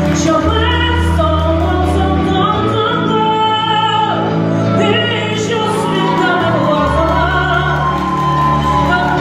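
Slow waltz sung live by a female singer, her voice wavering over held low accompaniment notes that change every few seconds.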